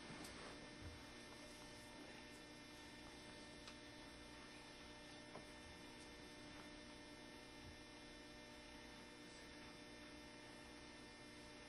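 Near silence: a steady electrical hum, with a few faint ticks.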